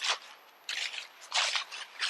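A few short rough scraping noises, three in under two seconds.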